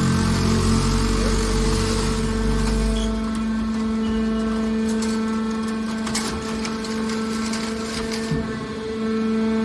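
Hydraulic metal baler running: the steady hum of its motor and pump, with a heavy low rumble that drops away about three seconds in and a few short metallic clanks around the middle.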